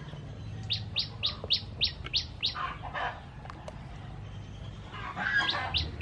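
A songbird calling: a quick run of about seven sharp, high notes, each sliding downward, about three a second. A second run starts near the end.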